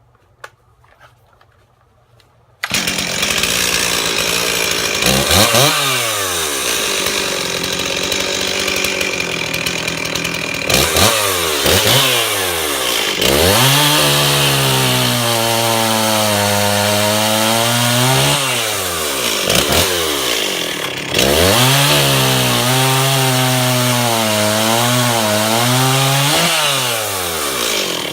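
Stihl MS360 Pro two-stroke chainsaw, coming in suddenly about two and a half seconds in and then revved up and down. In two long stretches the engine pitch sags and recovers, as it does under load in a cut.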